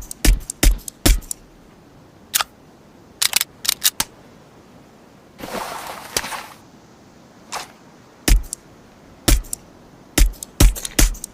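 Suppressed Heckler & Koch USP Compact pistol firing about fifteen sharp shots, some single and some in quick runs of two to four. A longer noisy burst of about a second comes around five and a half seconds in.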